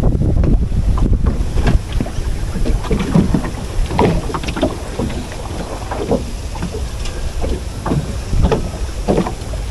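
Wind buffeting the microphone, strongest in the first couple of seconds, with scattered light knocks and rustles from hands handling fishing line on a wooden boat.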